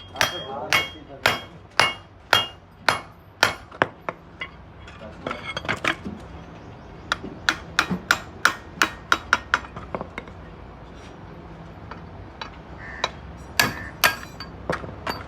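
Hammer blows on metal suspension parts of a car. First a steady series of about two ringing strikes a second, then a faster run of lighter taps, a pause, and a few more strikes near the end.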